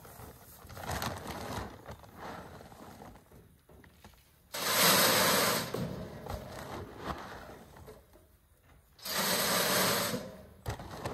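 Dry dog food poured from a bag into a guardian dog feeder's bin: two loud pours of about a second each, one about four and a half seconds in and one near nine seconds, with quieter handling noise between.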